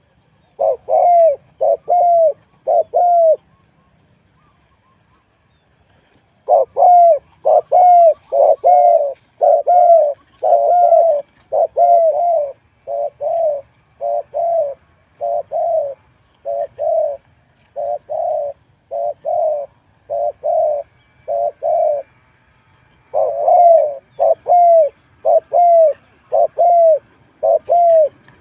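Spotted dove cooing in long runs of short, repeated coos, about one to two a second, with a pause of a few seconds early on and a short break about three-quarters of the way through.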